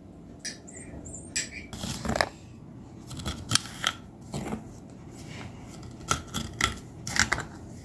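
A run of sharp, irregular clicks and scrapes from kitchen utensils being handled, with short pauses between.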